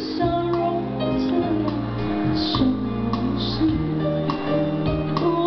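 A woman singing into a hand-held microphone over musical accompaniment with sustained notes.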